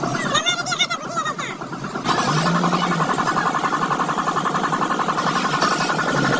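An engine running steadily with a fast, even pulse; it comes in suddenly about two seconds in, after a brief stretch of wavering sounds.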